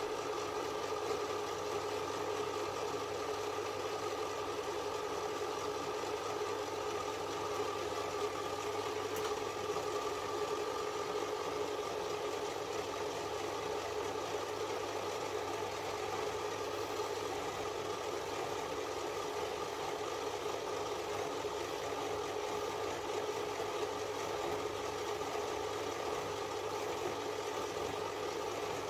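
Small bench metal lathe running at a steady speed, its motor and gearing giving a constant hum and whine.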